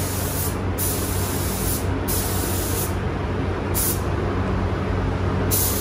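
Gravity-feed spray gun hissing as it sprays paint, starting and stopping several times as the trigger is pulled and released for each pass, over a steady low hum.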